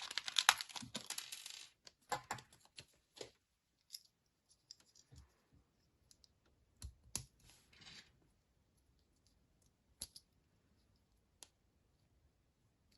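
Plastic packaging crinkling and tearing open for the first second or two, then scattered small clicks and rustles of handling small plastic parts.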